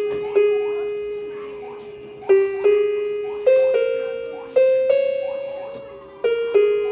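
Casio electronic keyboard playing a slow single-note melody on its harp voice. Each plucked note starts suddenly and rings down before the next, with a pair of quick notes about two and a half seconds in and again near the end.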